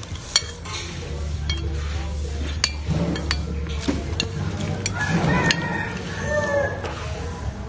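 Spoons clinking against soup bowls while eating, with three sharp clinks among quieter utensil sounds, over a steady low hum.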